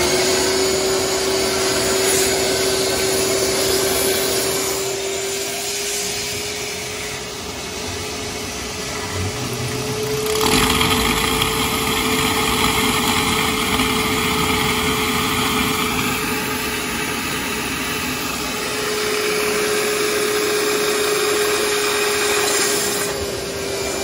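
Wet/dry shop vacuum running, sucking out a clogged air-conditioner condensate drain line to clear the clog: a steady motor hum over rushing air, growing louder and hissier about ten seconds in.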